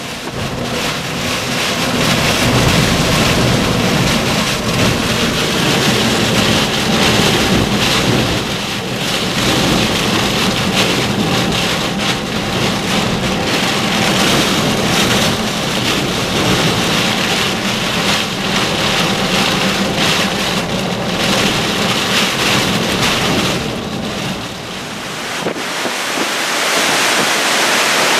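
Hurricane wind driving heavy rain against a car's windshield and body, heard inside the car as a dense, steady rush over a low rumble. About 25 seconds in the rumble drops out, and open-air hurricane wind gusts with rain.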